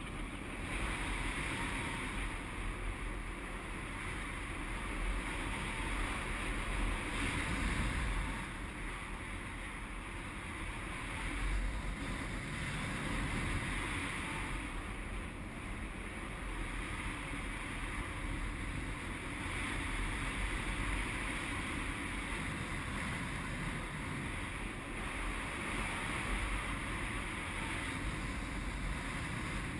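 Airflow rushing over a GoPro HD 960's microphone on a paraglider in flight: a steady wind hiss with a low rumble that swells and eases every few seconds.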